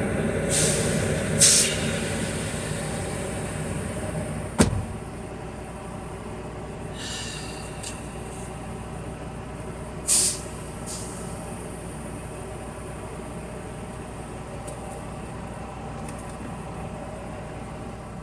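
Tractor-trailer's diesel engine running steadily. Short sharp hisses of air come a little after the start and again about ten seconds in, with a single sharp knock about four and a half seconds in.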